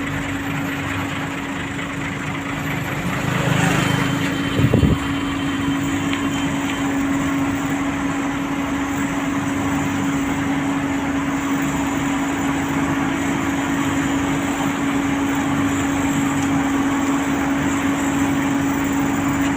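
Heavy road-paving machinery engine running steadily with a constant hum, with a brief clatter about five seconds in.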